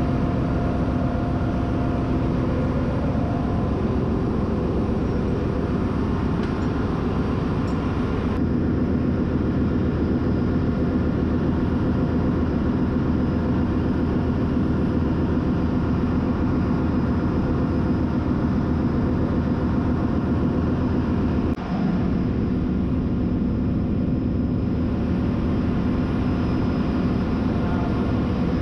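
Steady, loud drone of ship's engine-room machinery, a dense rumble with several steady hum tones. Its character shifts abruptly about a third of the way in and again about three quarters through.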